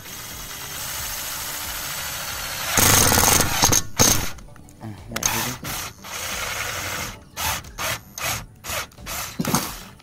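Makita TD110D 12V cordless impact driver drilling into thick aluminium with a hex-shank bit. It runs steadily at first, turns louder and rougher about three seconds in as the bit bites into the metal, then runs in a series of short bursts on and off the trigger.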